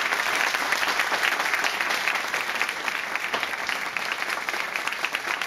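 Audience applauding, a dense spatter of many hands clapping that eases off slightly toward the end.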